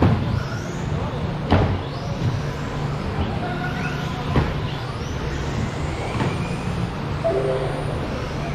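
1/10-scale electric stadium trucks with 13.5-turn brushless motors racing: thin motor whines rising and falling in pitch as the trucks speed up and brake, over a steady low hum. Three sharp knocks from the trucks on the track are spread through.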